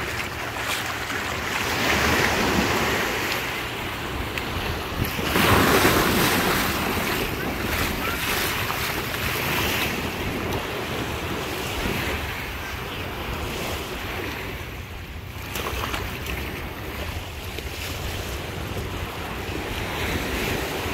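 Small surf waves washing up on a sandy beach, with wind buffeting the microphone. The wash swells and fades, loudest about five seconds in.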